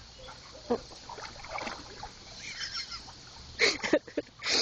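Water splashing and sloshing in a barrel as a dog paws and digs in it, with a cluster of louder splashes near the end.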